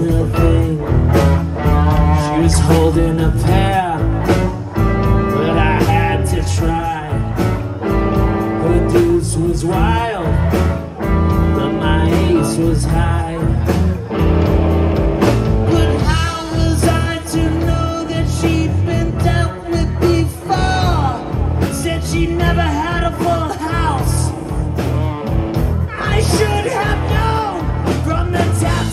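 Live band playing amplified rock music on electric guitars, keyboard and drums.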